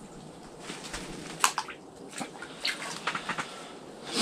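A few light clicks and rustles of small fishing tackle and bait being handled, over a steady low hiss.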